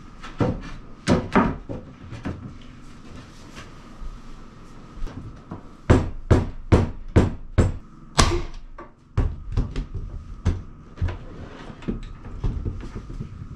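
Sharp knocks on hardwood floorboards as they are fitted, with a few near the start, a quick even run of about three a second midway, then scattered knocks.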